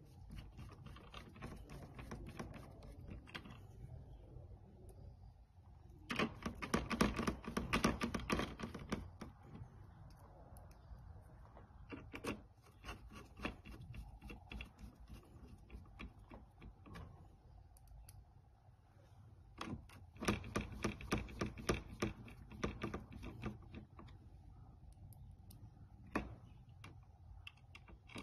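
Hand screwdriver driving screws that fasten a circuit board into a treadmill's plastic housing, giving several spells of quick clicking as the screws are turned, with quieter handling between them.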